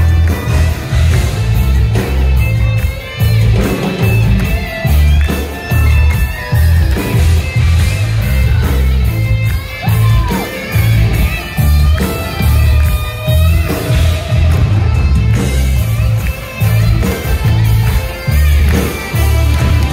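Live heavy metal band playing, electric guitar lines over bass, drums and keyboards, with a heavy pulsing low end. No clear lead vocal stands out.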